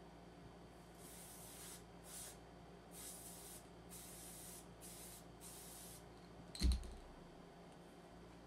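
Aerosol can of Loctite spray adhesive being sprayed in about six short hissing bursts, followed by a single thump near the end.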